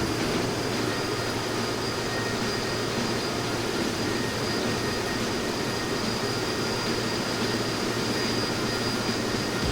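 Steady aircraft engine and airflow noise, an even rush with a thin high whine over it.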